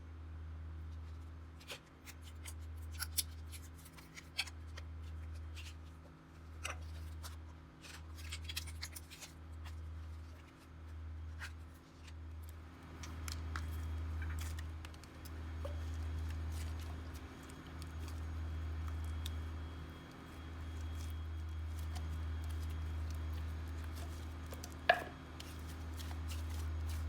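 Slime being kneaded and mixed by hand: scattered sticky crackles and clicks, with one sharp pop about 25 seconds in, over a low rumble that swells and dips every second or two.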